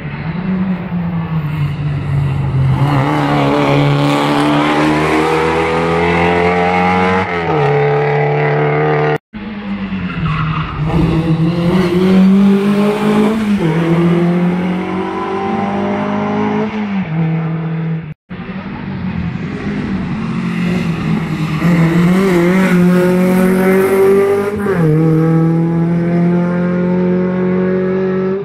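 Rally car engine revving hard under full acceleration as the car approaches and passes, heard in three separate takes cut abruptly together. In each take the engine note climbs and then drops back at each gear change.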